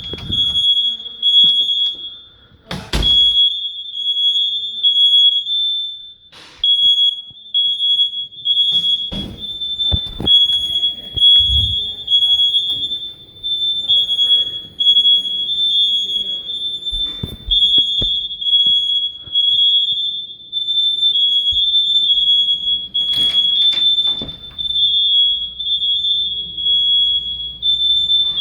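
Hard-wired household smoke alarms sounding continuously, a loud shrill high-pitched tone, with more than one alarm going at slightly different pitches. They were set off by smoke near the kitchen. Several loud knocks and thuds come through it.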